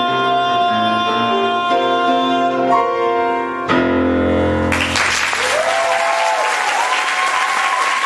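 Grand piano playing the closing chords of a musical-theatre song, with a final chord struck about three and a half seconds in. The audience then breaks into applause with some cheering.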